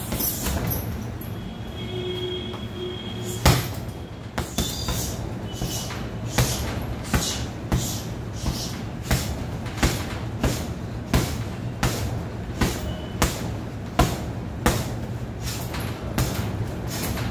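Heavy punching bag struck repeatedly: sharp slaps about one every 0.7 seconds, beginning a few seconds in, with the first hit the loudest. A steady low hum runs underneath.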